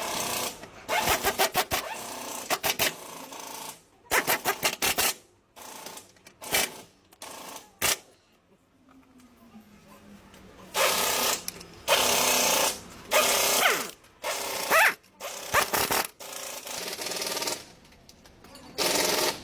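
Pneumatic impact wrench hammering in repeated short bursts, run on and off about a dozen times, as bolts are worked during an engine mount replacement.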